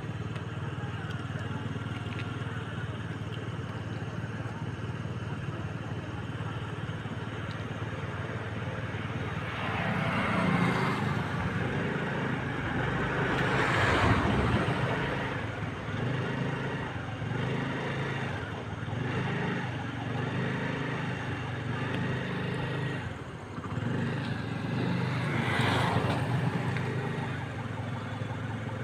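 Road traffic: a steady low engine hum, with vehicles swelling past about ten, fourteen and twenty-six seconds in, the one near fourteen seconds the loudest.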